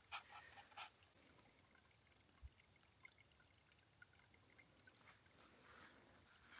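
Near silence with faint trickling water and a few soft clicks.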